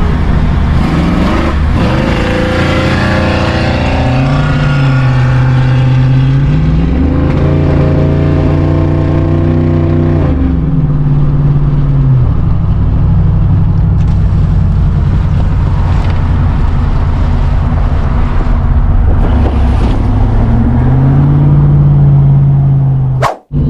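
A vehicle engine running under way, its pitch climbing, holding and dropping back several times as it accelerates and eases off. It cuts out briefly near the end.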